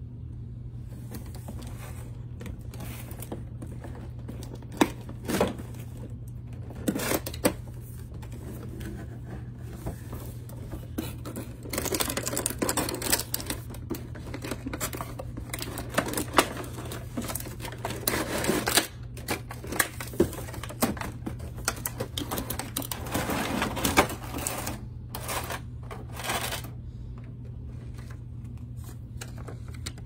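Cardboard box being handled and opened by hand: a few sharp taps and knocks, then longer stretches of cardboard scraping and rustling, over a steady low hum.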